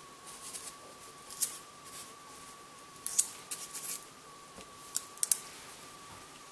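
Handling noises of floured hands shaping a ball of jouyo-manju dough and setting it on a square of paper: short, crisp crinkles and taps that come in clusters about a second in, around three seconds in and near five seconds in. A faint steady high tone runs underneath.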